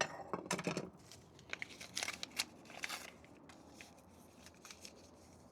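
Paper rustling and crinkling with small clicks of handling, denser in the first three seconds and then fainter and sparser.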